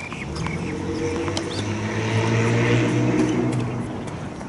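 Drone of a passing engine: a low, steady-pitched hum that swells to a peak about two and a half seconds in and then fades away.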